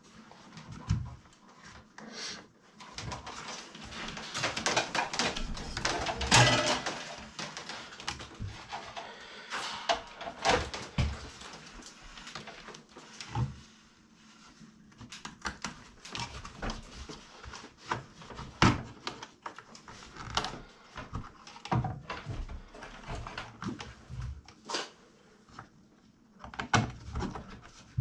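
Gloved hands working a flat fiber drop cable into a plastic fiber terminal box on a wall: irregular clicks, knocks, scrapes and rustling of plastic and cable being handled.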